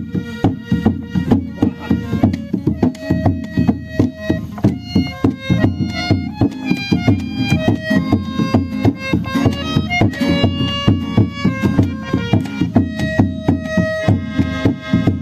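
Live acoustic folk jam: a harmonium plays sustained reedy melody and chords over a long barrel drum beaten by hand in a quick, steady rhythm, with an acoustic guitar in the mix.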